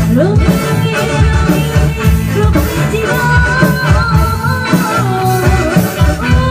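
Live band music through a PA: a drum kit and strong bass beat under keyboard and electric guitar, with singing.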